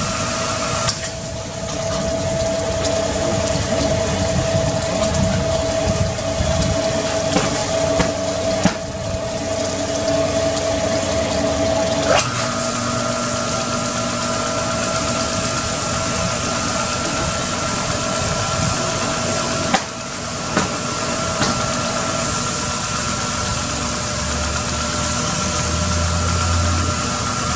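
Pressure washer running, its pump whining steadily under a constant hiss of water spray as it rinses soap foam off an engine bay. The whine shifts in pitch at a few sharp clicks, the trigger being squeezed or released.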